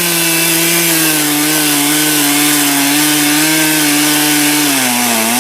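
Chainsaw running at high throttle, cutting through wood; its pitch holds steady, then sags near the end as the chain loads up in the cut.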